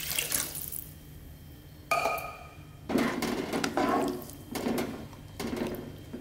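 Water poured from a plastic jug into a wok trails off within the first second. About two seconds in there is a short ringing clink, followed by a spatula stirring and scraping through the water in the non-stick wok several times.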